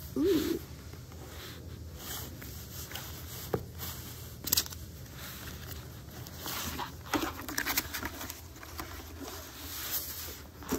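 Cardboard packaging of an Apple Watch Ultra being opened by hand: flaps rubbing and scraping, an inner box sliding out, with scattered clicks and rustles and a louder rustle at the very start.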